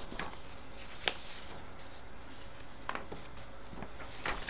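A few light clicks and taps of resin and plastic model-kit parts being handled, with one sharper click about a second in, over a faint steady hiss.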